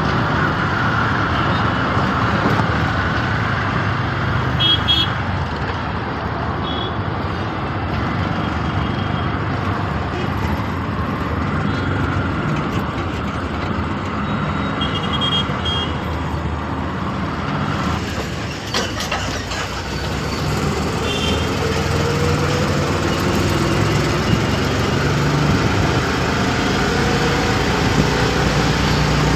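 Auto-rickshaw engine running in city traffic, heard from inside the open cab with road noise, while other vehicles' horns toot briefly several times.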